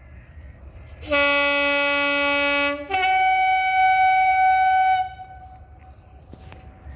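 Two-tone horn of Class 37 diesel locomotive 37714 sounding: a low note for about a second and a half, then, after a brief gap, a higher note for about two seconds.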